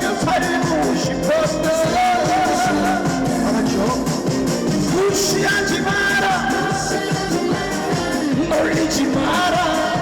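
Trot music played loud over a stage sound system: an instrumental stretch of the song with a wavering melodic lead line over the band backing.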